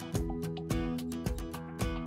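Instrumental background music with a steady beat, about two hits a second.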